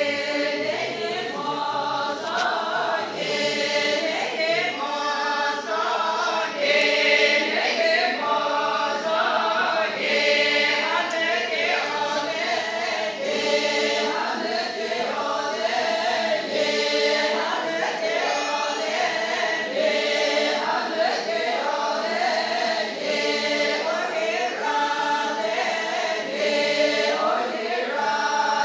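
A large group of voices singing together in chorus, in steady, evenly paced phrases.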